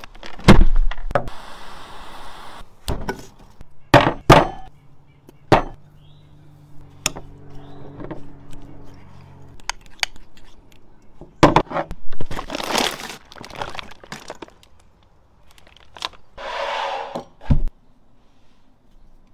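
A cooler lid shuts with a thud just after the start. It is followed by a string of separate short knocks, clicks and brief rustling or scraping noises from food preparation, with a low hum for a few seconds in the middle.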